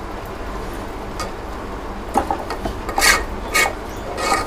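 Steel spoon stirring roasted vermicelli in sugar syrup in a metal pot, scraping against the pot in about four rasping strokes in the second half.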